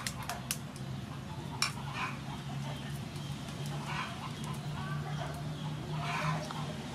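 A knife blade tapping a chicken eggshell to crack a hole in its top: a few sharp clicks in the first two seconds. Chickens cluck in the background.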